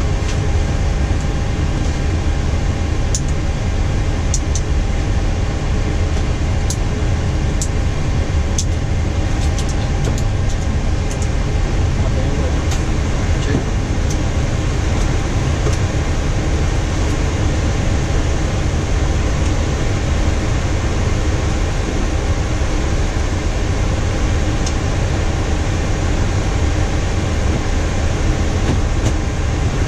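Steady flight-deck noise of a Boeing 737-800 on the ground with its CFM56 engines running: a low rumble under an even air-conditioning hiss. A few sharp clicks in the first ten seconds or so come from switches being set on the overhead panel.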